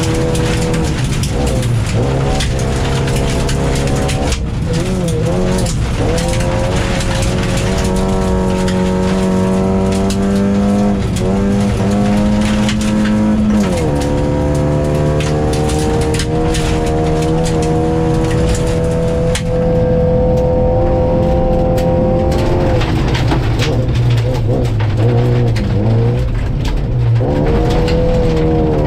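Rally car's engine at high revs heard from inside the cabin, its pitch holding steady for long stretches and changing abruptly at shifts and lifts, with a sharp drop about two-thirds of the way through. Gravel crunches and clicks against the underbody throughout.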